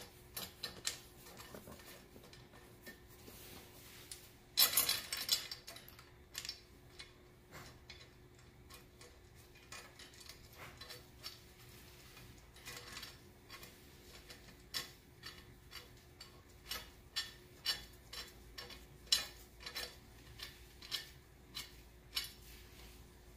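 A hand ratchet with a hex (Allen) bit ticking in short runs as it turns in a bolt of a motorcycle engine guard, with metal clinks of the tool on the bracket. A brief louder metal clatter comes about five seconds in.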